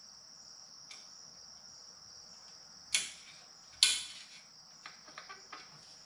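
Sharp metallic clicks from a snap ring and locking-hub parts being pushed into place in a front wheel hub: one small click about a second in, two louder ones around the middle, and a few light ticks near the end. A steady high-pitched tone runs underneath.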